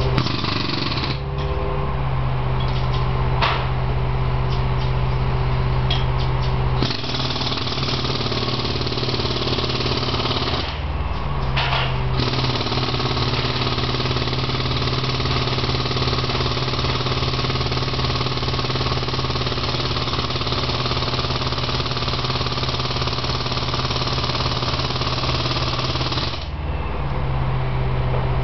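Jackhammer breaking up pavement in long runs of rapid pounding, with a short pause about eleven seconds in, before it stops a couple of seconds before the end. A steady engine hum runs underneath.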